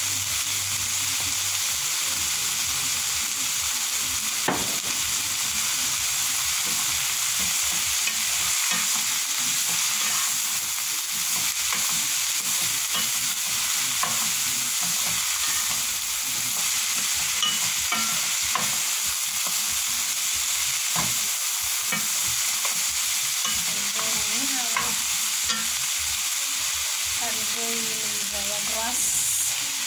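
Sliced carrots, peppers and green beans sizzling steadily in oil in a pan, stirred with a wooden spoon that gives an occasional faint knock against the pan.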